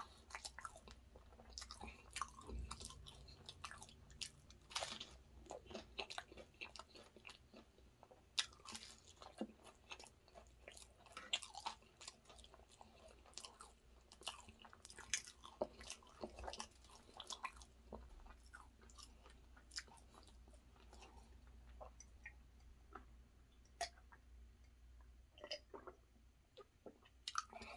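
A person chewing and biting a vegetable samosa: soft crunches and wet mouth clicks, thinning out in the last few seconds.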